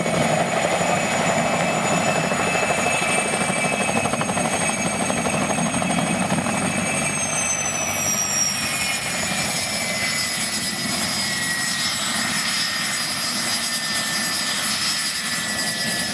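PZL-Świdnik Mi-2 helicopter's twin turboshaft engines and rotor running as it sets down on grass. About halfway through, just after touchdown, the high turbine whine slides down in pitch and the noise eases a little as the engines are throttled back.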